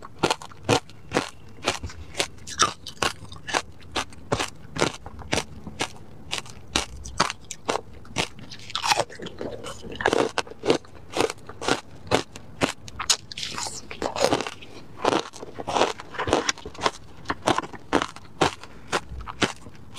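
Close-miked crunching of frozen ice wedges topped with passion fruit pulp and seeds, being bitten and chewed. It is an irregular run of sharp crunches, about two to three a second.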